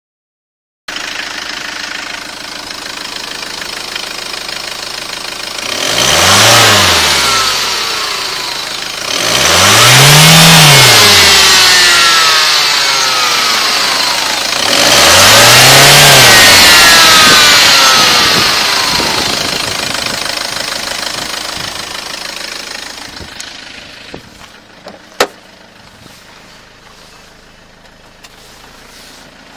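HDi common-rail turbodiesel engine idling and blipped three times, each rev bringing a whine that climbs and falls in pitch with engine speed before it settles back to idle. The whine is an unexplained fault noise, not a supercharger. A couple of sharp clicks near the end.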